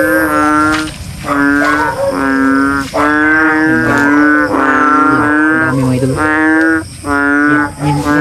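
A chorus of small bullfrogs calling: low, pitched calls, each lasting about half a second to a second, following one another with barely a pause, several frogs overlapping.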